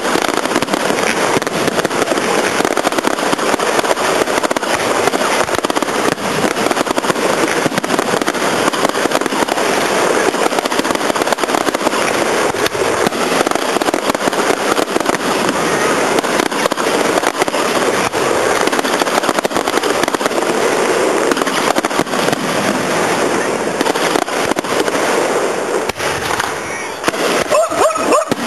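Fireworks display going off continuously: a dense barrage of crackling and bangs from aerial shells and fountains. A few heavier bangs come near the end.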